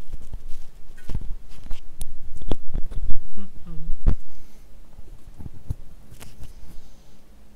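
Clip-on lapel microphone being handled: a run of irregular knocks, scrapes and rustles as it is unclipped from one shirt and clipped onto another. The noise dies down over the last few seconds.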